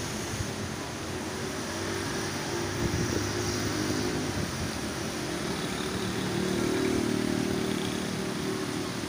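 Motor traffic on a rain-wet road: small engines of motorcycles and rickshaws running over a steady hiss, with one engine growing louder about six to seven seconds in.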